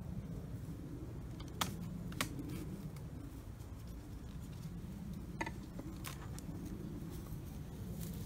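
A metal hive tool prying apart wooden hive boxes: a few sharp clicks and cracks as the seal between the boxes gives, spread over several seconds, over a steady low rumble.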